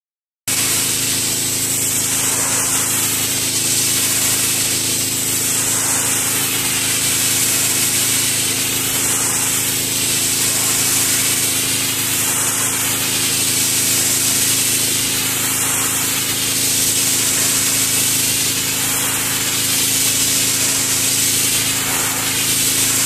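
Generac gas pressure washer with a Honda engine running steadily under load while its high-pressure spray hisses against a concrete slab. The spray's sound sweeps in a slow pattern that repeats about every three seconds as the wand is swept back and forth.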